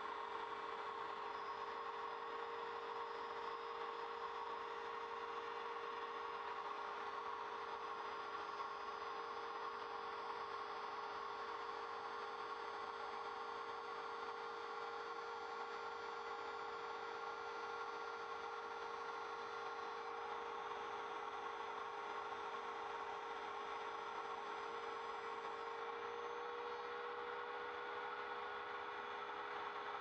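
A trim router spindle on an MPCNC Primo CNC machine runs with a steady whine as a 1/8-inch single-flute end mill cuts a 4 mm-deep pass through plywood at a slow feed. The pitch steps up slightly near the end.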